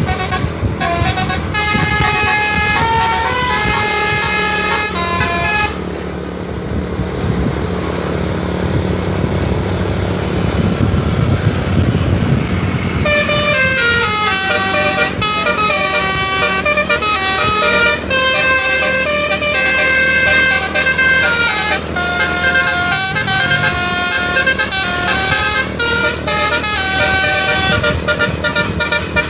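Tour bus's 'telolet basuri' musical air horn playing a multi-note melody of stepping pitches over the bus's running engine. The tune stops for about seven seconds partway through, leaving only the engine rumble, then starts again and plays on.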